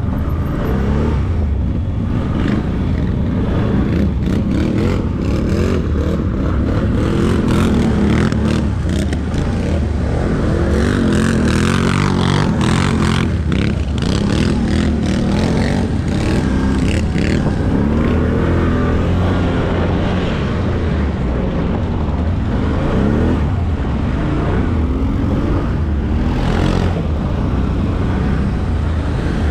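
ATV engine running as it is ridden, the revs rising and falling, with scattered knocks and rattles.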